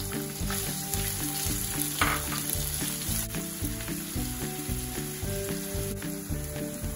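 Sliced onions frying in hot oil with ajwain in a nonstick kadhai: a steady sizzle, stirred with a silicone spatula, with a brief louder flare about two seconds in.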